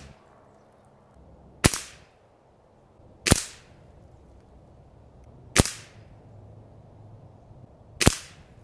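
Gamo Swarm Magnum Pro Gen3i .22 break-barrel air rifle, fitted with a sound dampener, firing four shots. Each is a sharp crack with a short decay, the shots about two seconds apart.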